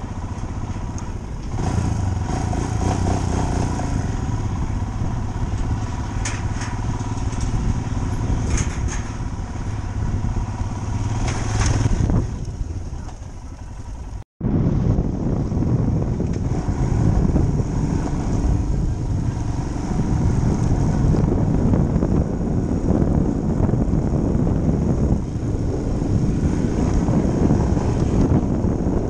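Royal Enfield motorcycle riding at low speed, the engine running steadily with some clattering over the steel-grated deck of a suspension bridge. About halfway through the sound cuts out for a moment, then the motorcycle runs on again over a rough dirt trail.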